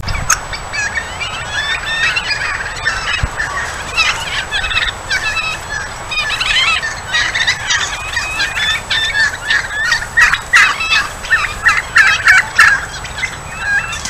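A flock of wild turkeys calling, with many short, overlapping calls that grow denser and louder through the second half.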